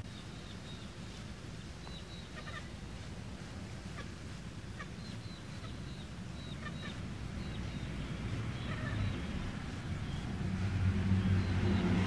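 Short, high bird-like chirps, single or in quick groups, every second or two, some dropping in pitch, over a low rumble that grows louder near the end.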